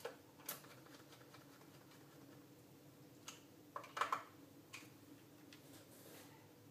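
Scattered light clicks and taps of hands handling small tools, screws and the plastic case of a handheld antenna analyzer on a workbench, loudest in a short cluster about four seconds in, over a faint steady hum.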